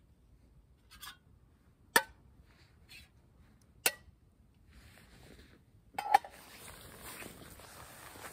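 Several sharp clicks or clinks, about a second apart, with a louder double click about six seconds in, followed by a steady hiss.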